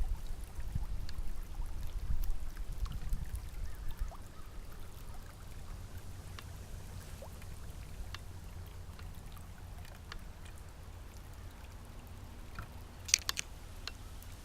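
Wind buffeting the microphone as gusty low rumble for the first few seconds, settling into a steady low outdoor rumble. Scattered small clicks and taps run through it, with a quick cluster of them near the end.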